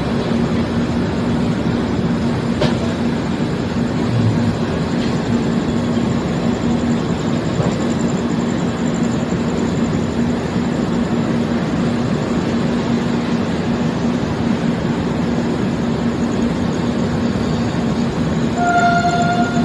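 Mahamana Express passenger train running with a steady rumble and hum. A short horn blast sounds near the end.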